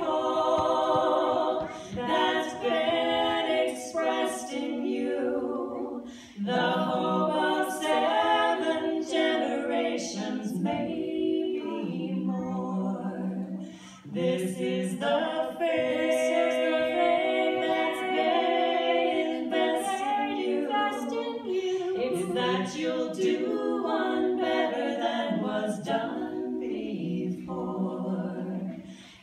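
Three women singing a cappella in close harmony, in long sustained phrases with short breaks about six, fourteen and twenty-eight seconds in.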